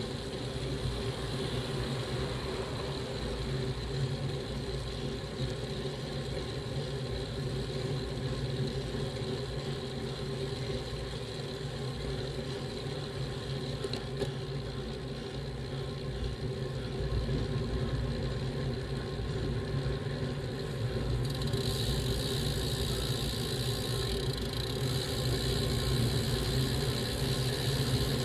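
Wind rumble and road noise picked up by a bike-mounted camera while riding uphill: a steady low rumble with no speech. About three-quarters of the way through, a brighter hiss joins in and stays to the end.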